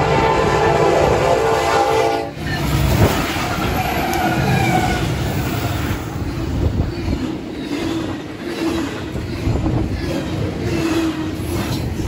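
Union Pacific freight train's air horn blowing a steady chord that cuts off about two seconds in. Then the diesel locomotives and double-stack container cars pass at speed, with continuous rumbling and wheel clatter on the rails and wind on the microphone.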